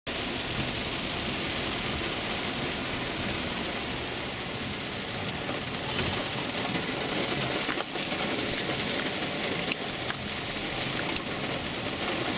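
Heavy rain pattering on a car's roof and windows, heard from inside the cabin as a steady hiss, with sharper individual drop hits from about halfway through.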